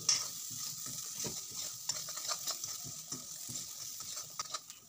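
Metal spatula stirring and scraping round a kadai while spices, cashews and raisins fry in ghee with a light sizzle; the scrapes come as many short, irregular strokes over a steady hiss.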